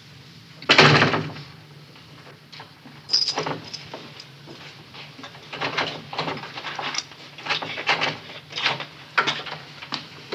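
An apartment door is shut firmly about a second in, followed by a run of light, irregular taps and knocks, and a door is opened near the end.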